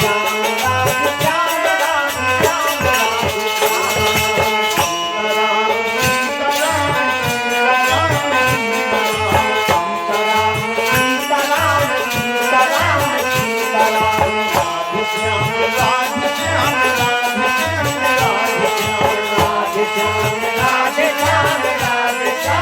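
Devotional Shri Ram bhajan ringtone music with a steady beat.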